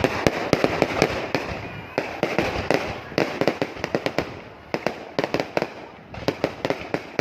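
Fireworks display going off in a fast, irregular run of bangs, several a second, with a steady rumble of noise between them.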